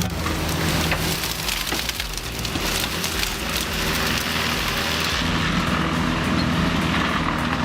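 Industrial wood chipper running under load: a steady engine drone with dense crackling and splintering of wood being shredded. About five seconds in, the crackle thins and a steadier engine hum comes forward.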